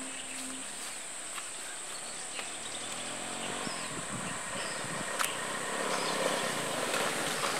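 Insects keep up a steady high-pitched drone over soft rural background noise, with a few short chirps and faint clicks scattered through.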